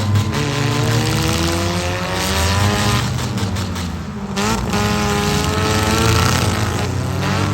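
Several four-cylinder demolition derby cars' engines revving hard together, their pitch rising and falling. The sound dips briefly about four seconds in, then one engine revs up sharply.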